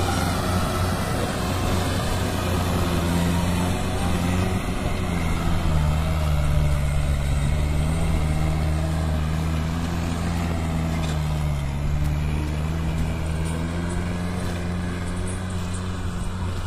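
Mahindra tractor's diesel engine running steadily under load as it pulls a heavily loaded trolley across loose dirt, its pitch dipping slightly about five seconds in.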